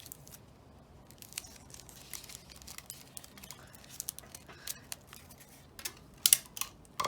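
Adhesive tape being pulled off the roll, torn and pressed down by hand: light crackling with scattered small clicks, and a louder cluster of clicks about six seconds in.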